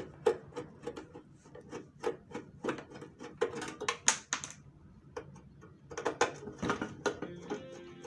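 Irregular clicks and light knocks at close range. Guitar music comes in near the end.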